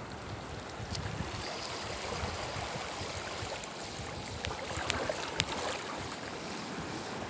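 Small sea waves washing over rocks at the water's edge, a steady rushing. Three light clicks come about four to five and a half seconds in.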